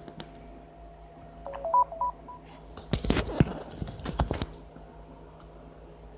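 Sony Handycam DCR-SR42 camcorder giving a short run of electronic beeps in stepped tones, followed by a second or two of clicks and knocks from handling the camera.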